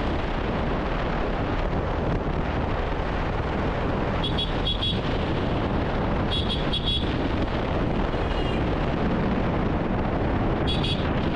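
Wind rushing over a helmet-mounted camera with a Yamaha R15 V4 motorcycle's 155 cc single-cylinder engine running at a steady cruising speed. Three times, a few seconds apart, a short cluster of high ringing pips cuts through.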